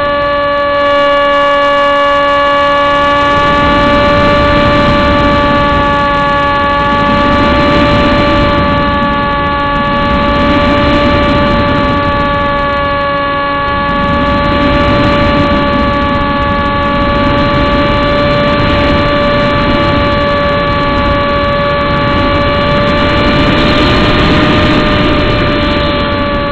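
Electric motor and propeller of a ParkZone Striker RC flying wing heard from its onboard camera: a steady high whine with several overtones, under gusting wind rush on the microphone. The whine rises slightly in pitch near the end.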